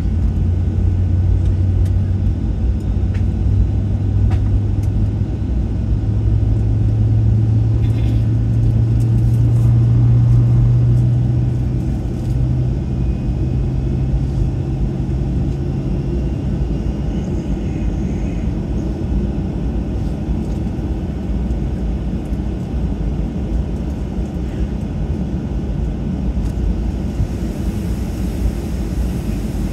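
Steady low rumble inside the cabin of a Boeing 737-700 moving on the ground. A low hum in the rumble rises slightly in pitch about six seconds in and fades out around sixteen seconds in.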